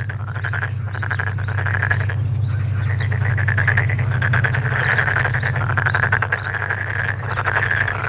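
A male frog calling, its paired vocal sacs swelling: a long, rapid pulsed croak with brief breaks about two seconds in and near the end. Short high downward-sweeping notes repeat over the croak.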